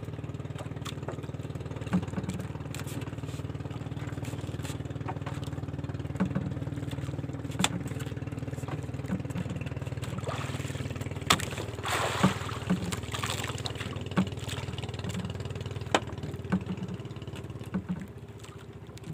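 A small outrigger boat's engine idling steadily, with a few sharp knocks and a brief rushing hiss a little past halfway.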